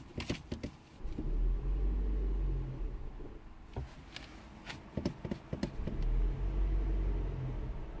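2006 Toyota Prius 1.5-litre Atkinson-cycle engine spun by the hybrid system for a start, two deep rumbling cranks of about two seconds each, with clicks and knocks between them; it does not fire. The mass airflow sensor reads far below the 5 grams per second the computer needs during cranking, a no-start that the mechanic traces to debris in the MAF sensor.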